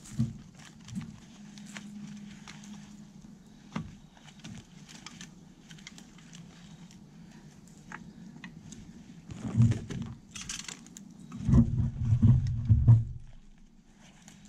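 A hunter climbing into and settling on a metal ladder treestand: scattered light clicks and knocks of gear and metal, with clothing rustle. Heavier low bumps and thuds come in two clusters, about ten seconds in and again around twelve seconds.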